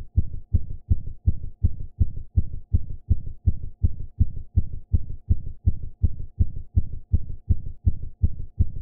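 Alien creature heartbeat sound effect: a fast, even run of low, muffled thumps, close to three a second, with nothing in the high end.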